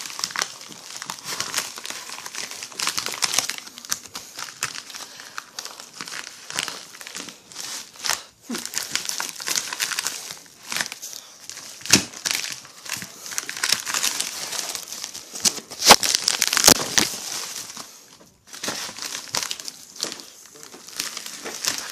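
Plastic Priority Mail shipping envelope crinkling and crackling as it is handled and pulled open, in uneven spells of louder and quieter rustling.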